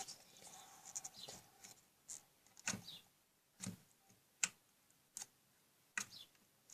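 Stiff slime being squeezed and pulled by hand, giving about ten scattered soft sticky clicks and pops. The slime is hard to stretch and tears.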